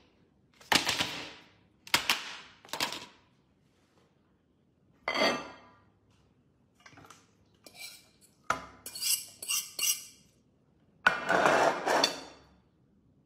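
Plates being handled and set down on a table, and a metal fork clinking and scraping against a plate, in separate short clatters with pauses between them. The loudest and longest clatter comes near the end.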